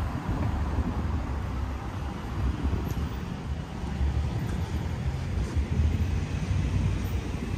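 City street ambience: a steady wash of road traffic, with wind buffeting the microphone in an uneven low rumble.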